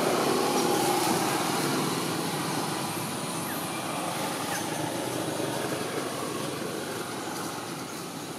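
Steady outdoor background noise, an even rumble and hiss with no distinct events, loudest near the start and slowly fading.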